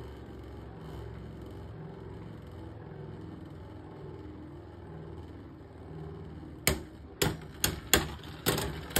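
Two Beyblade X tops spinning on a plastic stadium floor with a steady low whir. About seven seconds in, Dran Sword 3-60F, its ratchet set in line with the blade, starts clashing with the other bey: sharp plastic-and-metal clacks about twice a second, hits that sound heavy in this setup.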